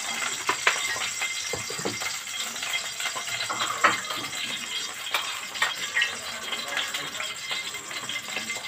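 Ghee and a little oil heating in a pot over a gas flame, crackling with irregular small pops over a steady hiss.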